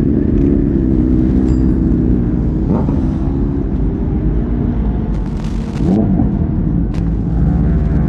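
Kawasaki ZX-6R inline-four engine idling steadily through its stock exhaust, with a few sharp clicks near the end.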